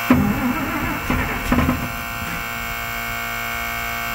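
Starter cranking the 5-ton military 6x6 truck's engine for about two seconds without it catching, over a steady electrical buzzing tone that continues after the cranking stops. The engine is not firing, which the owners put down to a fuel delivery problem.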